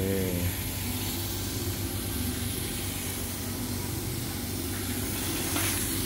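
100-watt CO2 laser cutter running a cut through 18 mm plywood: a steady hum with an even hiss from the running machine.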